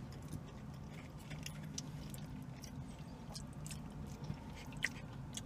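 Faint chewing and small scattered mouth clicks from a man eating a barbecued pork rib, over a low steady hum inside a car.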